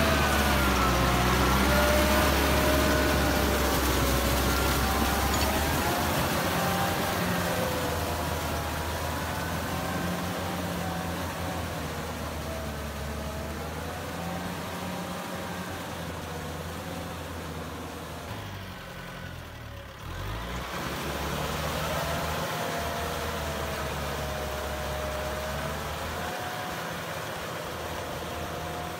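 Kubota M6040SU tractor's diesel engine running under load while pulling a rotary tiller through rice-paddy mud, its pitch wavering up and down as the load changes. It is loudest at first and grows fainter as the tractor moves off, with a brief drop about two-thirds of the way through.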